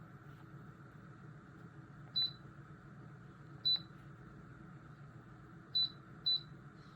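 Oscillating electric fan running with a steady whir, broken by four short, high-pitched squeaks about two, four, six and six and a half seconds in. The squeaks come from the oscillation mechanism, a fault that developed after only about three months of use.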